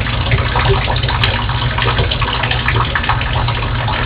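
Water leaking steadily from the balcony deck above, splashing down in a dense, continuous patter of drips. The speaker takes the leak as a sign of water collecting under the deck flooring above, probably from rotten wood.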